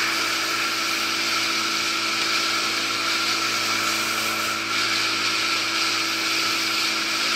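A small boat's outboard motor running at a steady speed: a constant hum with a hiss over it.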